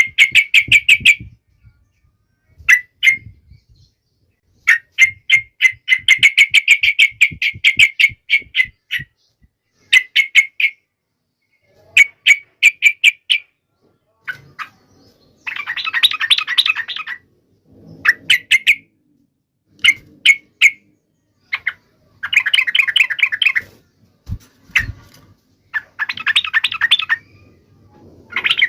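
Trucukan (yellow-vented bulbul) singing in bursts of rapid, sharp chattering notes with short pauses between them. From about halfway on these give way to fuller, denser warbling phrases.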